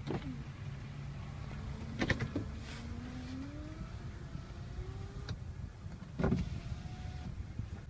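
Low steady hum of a car, with faint whines that rise in pitch several times and a few short clicks and knocks, the loudest about two seconds in and again past six seconds.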